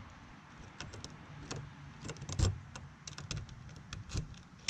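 A key being worked in a newly installed RV entry door handle and deadbolt lock, making a run of small clicks and clacks as the lock mechanism turns. The sharpest clack comes about two and a half seconds in.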